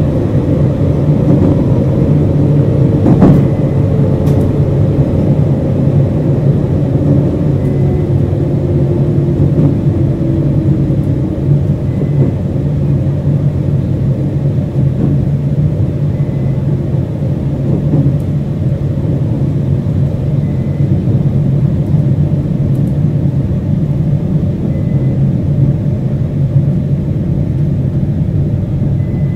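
Interior running sound of a JR Hokkaido 721 series 0 electric multiple unit, the thyristor phase-controlled type: a steady low rumble of wheels and motors, with a faint whine that falls in pitch over the first ten seconds as the train slows toward a station. One sharp click comes about three seconds in.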